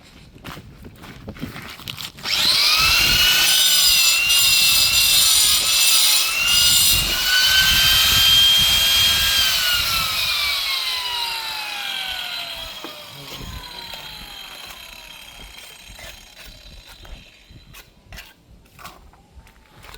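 An electric grinder cutting marble stone: its motor starts suddenly a couple of seconds in and runs at a high whine, dipping slightly as it bites into the stone, over a hiss of cutting noise. After about seven seconds it is switched off, and the whine falls steadily in pitch as the disc coasts to a stop.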